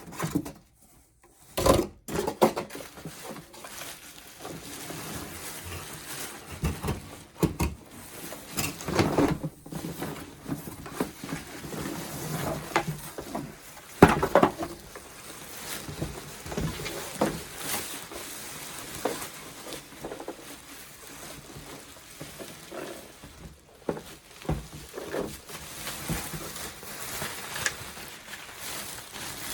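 Unboxing handling noise: irregular knocks, clatter and rustling as packaging and plastic parts of a carpet cleaner are handled, with a sharp knock about halfway through.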